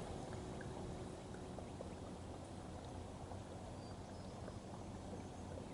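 Faint, steady outdoor ambience: a low even hiss with a few faint, scattered high ticks.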